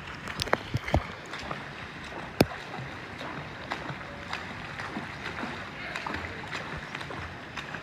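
Swimming-pool water lapping and sloshing right at the microphone, held at the surface, with several sharp clicks in the first couple of seconds.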